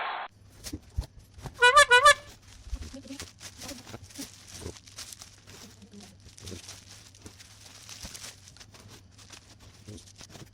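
Scattered light clicks and rustles of handling, typical of packaging being handled, over a faint low steady hum. About two seconds in comes a brief high, wavering squeal of a few quick pulses, the loudest sound here.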